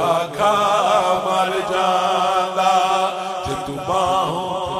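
A man's voice singing a Punjabi devotional kalam in naat style, drawing out long wavering ornamented notes over a steady low drone. The line breaks off about three and a half seconds in and a new phrase begins.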